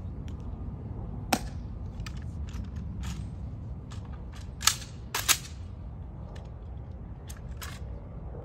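Sharp clicks and snaps from ceremonial honor guards' drill movements and rifle handling. There is one loud snap a little over a second in and three more around the middle, with lighter clicks between them, over a steady low background noise.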